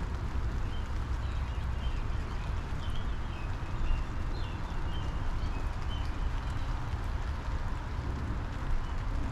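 Steady spring rain shower falling on a lilac bush, with a low rumble underneath. A small backyard bird chirps in short notes for a few seconds in the first half.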